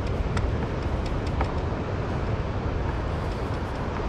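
Wind rumbling on the microphone: a steady low rumble that rises and falls slightly, with a few faint ticks.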